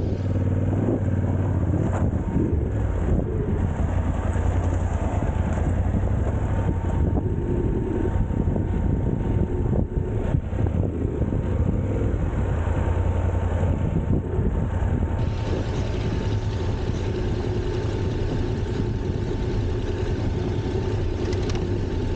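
A vehicle's engine running steadily on the move, with continuous road and wind noise.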